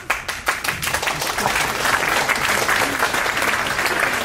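Audience in a lecture hall applauding. The applause starts suddenly with a few claps and fills in to steady clapping from many hands.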